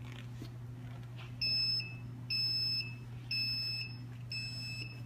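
SP-T156 benchtop centrifuge beeping at the end of its run as the rotor spins down to a stop: a high electronic beep about once a second, four times, starting about a second and a half in. A steady low hum runs underneath.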